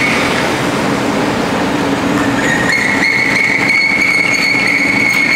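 Continuous nut roasting machine running: a steady, loud mechanical drone with a constant high whine over a lower hum. About halfway through, the whine dips briefly in pitch, then steps back up.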